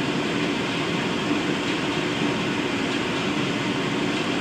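Oxy-acetylene welding torch burning with a steady hiss, its neutral flame held on metal plate to melt and push a fusion-weld puddle with no filler rod.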